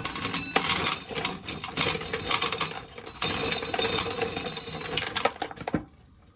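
Dense, irregular clinking and rattling over a steady hum, cutting off suddenly near the end.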